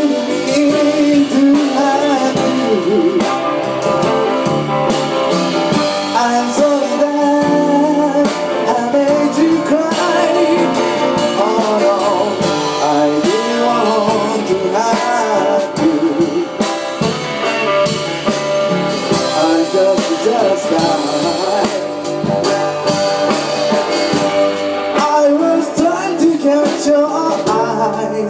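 Live band playing a blues-rock number: guitar and drum kit with a singing voice.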